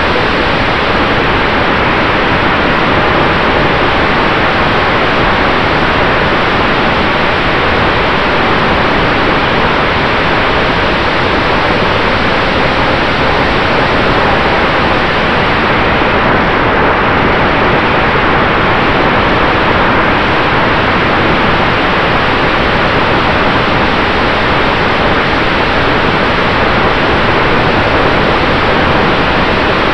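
Onboard recording of an RC F4U Corsair warbird in flight: a steady, loud rush of wind over the camera microphone mixed with the propeller and its brushless electric motor (Cobra C-2820/12), with a faint steady tone underneath.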